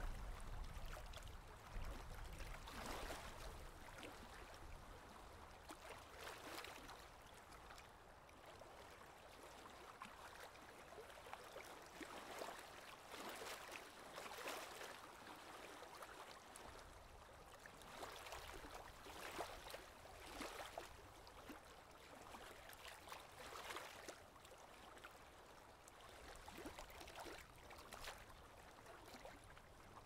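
Faint, gentle surf: small waves washing in and drawing back in soft swells every few seconds.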